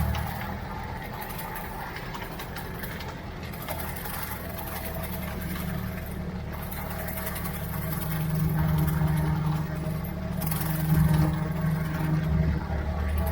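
Ford 3600 tractor engine running steadily, getting louder in swells in the last few seconds.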